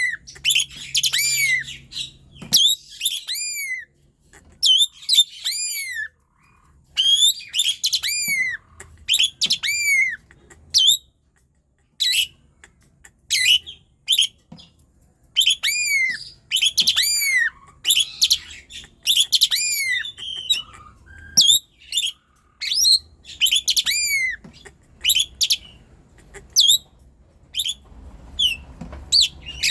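Asian pied starling (jalak suren) singing at full: loud whistled notes, each rising then falling in pitch, with many overtones, repeated in bursts with short pauses.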